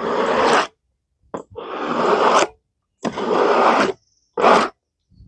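Four rough scraping strokes on wood, each lasting under a second, with silence between them.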